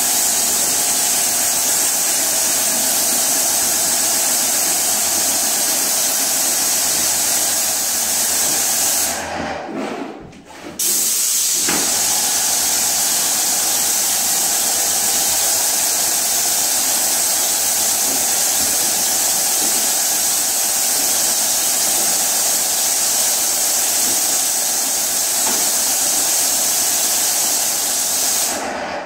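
Paint spray gun hissing steadily as primer is sprayed onto drywall. The spray stops for about a second and a half a third of the way through, as the trigger is released, then starts again.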